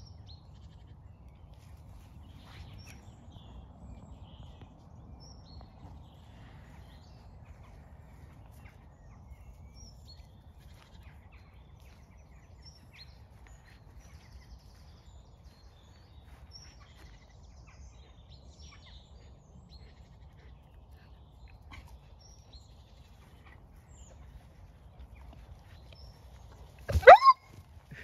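Faint, scattered bird chirps over a low, steady rumble. Near the end comes one short, loud animal call that rises in pitch.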